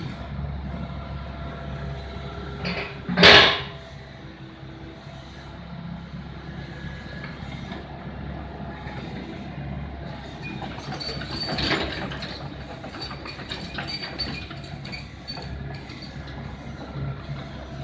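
Heavy-equipment diesel engine idling steadily, with a loud, short burst of hissing noise about three seconds in and scattered clicks and rattles through the second half.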